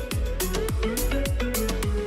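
Background music with a steady beat: deep drum hits about twice a second under a melody.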